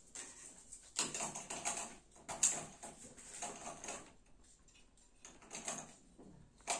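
Kitchen containers being handled: a large clear plastic bowl and a metal dish picked up and moved. Irregular light knocks and clatters, with a sharper knock near the end.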